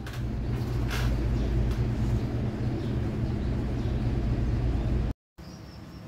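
City bus engine running at the depot: a steady low rumble that cuts off suddenly about five seconds in.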